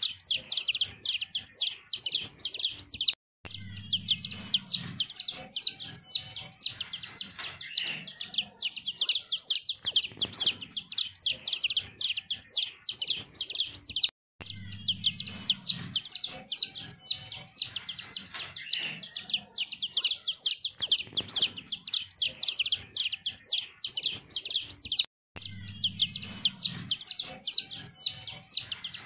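A group of baby chicks peeping continuously: many rapid, high-pitched peeps a second, overlapping. The peeping cuts off sharply for a moment three times.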